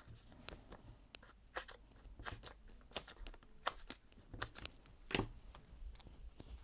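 Faint rustling and light, irregular clicks and taps of cardstock being handled and turned over on a tabletop, with one sharper scrape a little after five seconds in.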